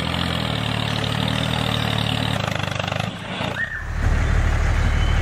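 Motor vehicle engine running with a steady low hum. It dips briefly about three seconds in, then comes back lower and heavier.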